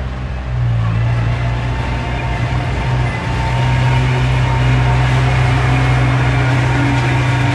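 Diesel engine of heavy earthmoving equipment running steadily with a low hum, growing louder about three and a half seconds in.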